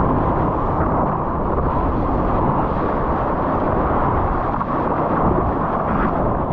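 Surfboard planing across a wave: a steady, low rush of water spray mixed with wind noise on the action camera's microphone.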